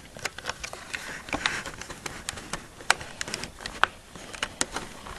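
Irregular plastic clicks and knocks as the top cover of a plastic electric airsoft rifle is pulled back and worked loose to open the battery compartment.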